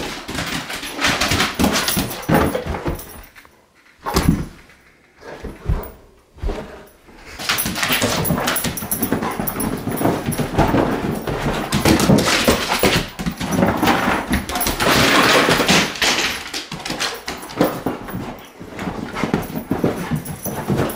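English springer spaniel doing zoomies, tearing around the room and leaping on and off the couch, with paws thudding and scrabbling on cushions and wooden floor and the dog's own excited noises. It starts in short spells with brief lulls, then runs almost without a break from about eight seconds in.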